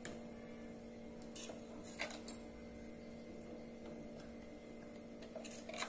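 A few light clicks and scrapes of a metal spoon against a steel mixer jar and a glass bowl as thick chutney is spooned out, the sharpest click a little over two seconds in, over a faint steady hum.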